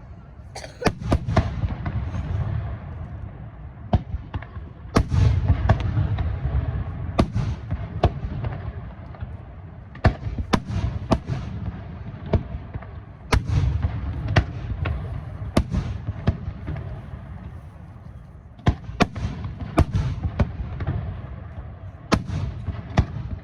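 Aerial fireworks display: shells bursting in quick volleys, deep booms with sharp cracks on top, coming in waves every few seconds.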